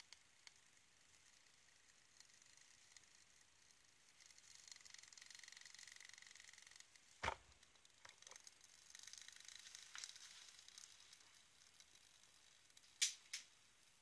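Faint hiss of a beer-can alcohol stove burning, then a single sharp thump about seven seconds in as a wet dish towel is dropped over it to smother the flames. Another faint hiss follows, and two sharp clicks come near the end.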